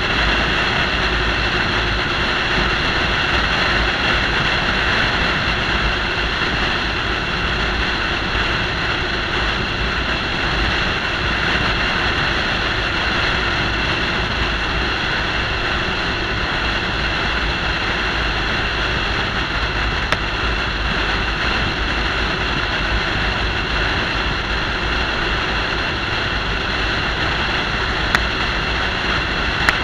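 Steady road, wind and engine noise inside a truck cruising at highway speed, with two small clicks in the second half.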